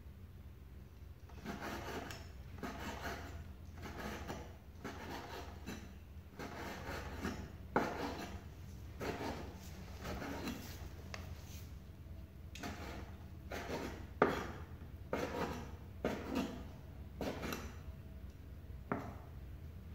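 Cleaver cutting raw meat on a wooden cutting board: repeated knocks and scrapes of the blade on the wood, about one a second and uneven, with two sharper knocks about eight and fourteen seconds in.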